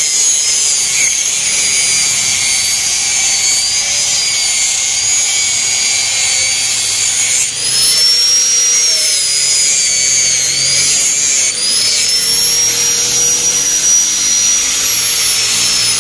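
Electric angle grinder running continuously and cutting along the edge of a loster (ventilation block) mould, its high whine dipping and recovering in pitch as the disc bites.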